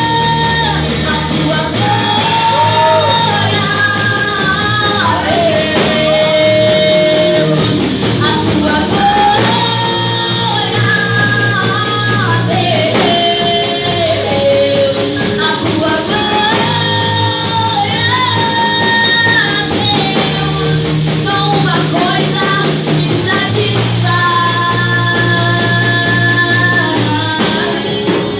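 Live worship band playing a Portuguese gospel song: a sung melody over bass and drums, amplified through a PA.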